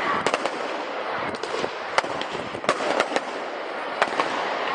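Firework display going off: a run of sharp bangs and cracks at irregular intervals over a continuous crackling hiss.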